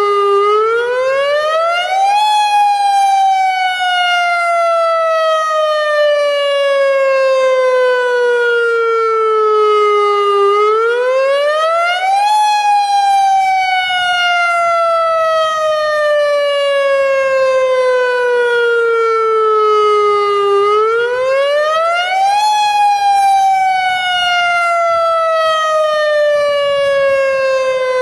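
AHAB tsunami warning siren sounding its wail tone, the signal used in real tsunami emergencies, here sounded as a test. It is a loud electronic tone rich in overtones that rises quickly over about two seconds, then falls slowly over about eight, in a cycle repeating three times.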